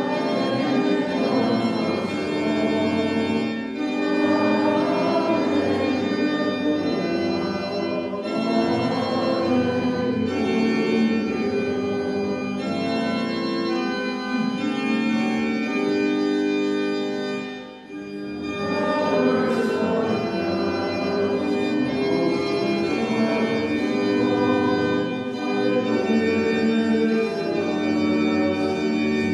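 Organ music: held chords moving from one to the next, with a brief break between phrases about 18 seconds in.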